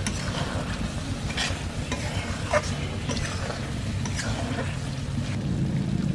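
A metal spatula stirring and scraping chilli chicken in an aluminium kadai, a few scrapes about a second apart over a steady sizzle, as cornflour slurry is stirred in to thicken the gravy.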